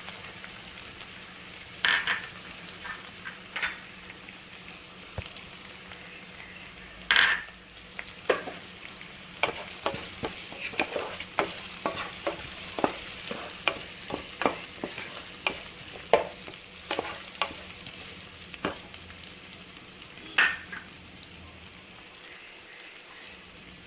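Onion, garlic, curry leaves and crushed chilli frying in coconut oil with a steady sizzle, while a spoon stirs them and knocks against the pan in a run of sharp taps, thickest in the middle.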